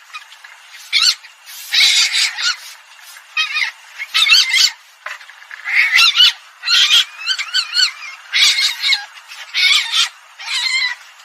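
Recorded calls of an Asian palm civet, played as a lure for hunting: short, high-pitched, wavering calls repeated in quick bursts about once a second.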